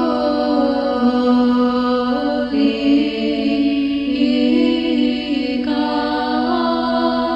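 Choir singing Orthodox liturgical chant a cappella: long held chords that move to new notes every second or two.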